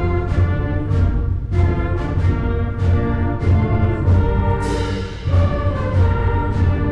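Band music with brass and a steady low drum beat of about two beats a second, like a march.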